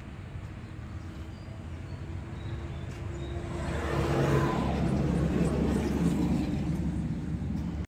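A motor vehicle's engine hum, a steady low drone that grows louder about halfway through and eases slightly near the end, as of a vehicle passing.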